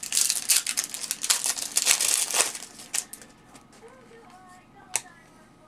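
A foil trading-card pack wrapper being torn open and crinkled, loud for about two and a half seconds, then quieter handling with a sharp click about five seconds in.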